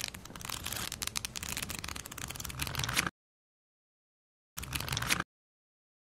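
Paper flipbook pages riffling rapidly: a dense, crackly flutter of many quick clicks lasting about three seconds, which cuts off suddenly. About a second and a half later comes one short burst of similar noise, about half a second long.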